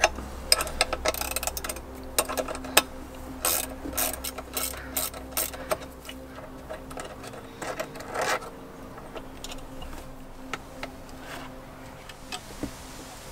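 Hand wrench clicking and clinking against metal bolts as they are worked loose on a jet-ski engine. The short irregular clicks come thick at first and thin out about two-thirds of the way through.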